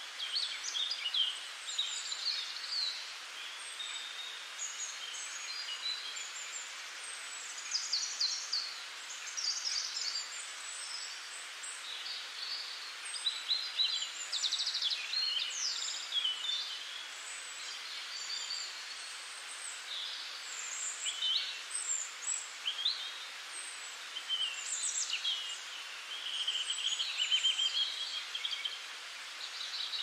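Several birds chirping and singing all through, short quick calls and gliding notes over a steady hiss.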